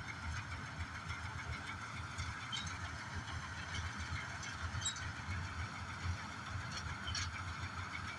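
John Deere 5075 four-wheel combine harvester running steadily while cutting rice, a low engine rumble under a constant mid-pitched hum from its machinery. A few faint, short high chirps sound over it.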